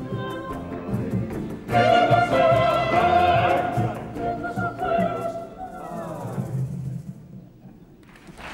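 Early-music ensemble of singers and choir with harp, plucked strings, viol and brass performing. A loud held sung note swells about two seconds in, and the piece closes with a final chord that fades away near the end.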